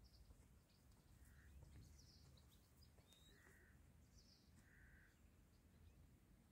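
Near silence: faint outdoor ambience with a low rumble, and a few faint short distant bird calls about a second apart.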